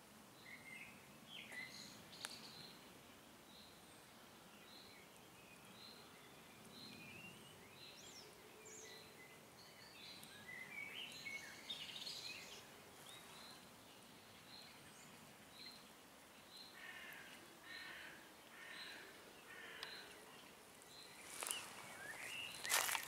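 Songbirds calling in a forest: one short high note repeated about once a second, with scattered chirps and trills from other birds. Near the end come a few rustling crunches, like steps on forest litter.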